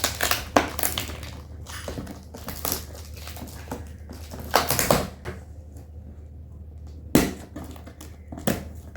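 A gift box being worked open by hand: irregular crunches, scrapes and knocks of the packaging, loudest around five seconds in and again about seven seconds in. A steady low hum runs underneath.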